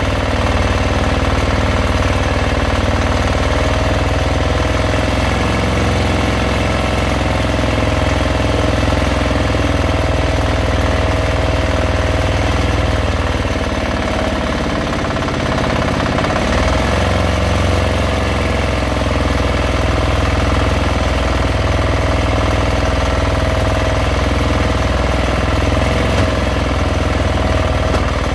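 Fishing boat's engine running steadily, its note dipping briefly about halfway through before picking up again.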